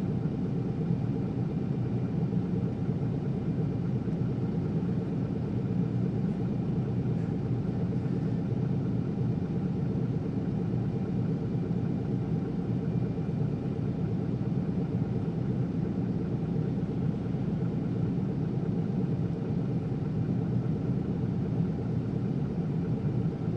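Isuzu Erga city bus's six-cylinder diesel engine running steadily, heard from inside the passenger cabin. It is an even, unchanging rumble.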